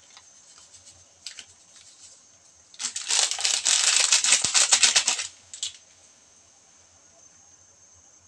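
Sachet of Knorr sinigang soup mix crinkling as it is shaken and squeezed empty over the pot: a dense crackle starting about three seconds in and lasting about two and a half seconds.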